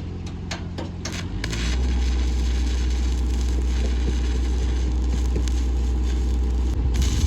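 Stick welding starting up: a few sharp clicks as the arc is struck. About a second and a half in, a steady engine hum rises and then holds, with a faint crackle over it.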